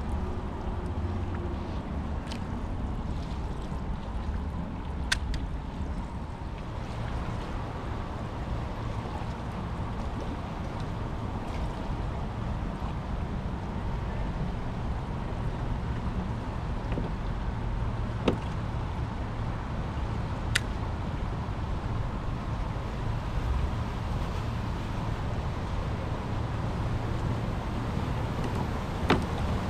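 Steady low rumble of wind and water around a kayak, broken by four sharp clicks spread across it.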